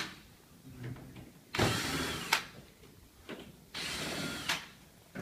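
Cordless power screwdriver running in two short bursts, each under a second with a faint whine and ending in a sharp click.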